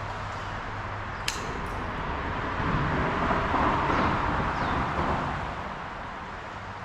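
Road traffic passing over a bridge overhead: a rushing tyre noise that swells about halfway through and then fades. A single sharp click sounds about a second in.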